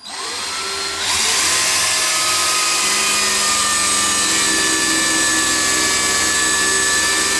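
Handheld power drill running a countersink bit into a wooden cabinet door, cutting a countersunk screw hole. The motor whine steps up about a second in, then holds steady.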